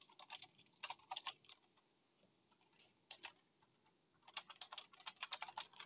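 Faint computer-keyboard typing: a few keystrokes about a second in, then a quicker run of keystrokes in the last second and a half.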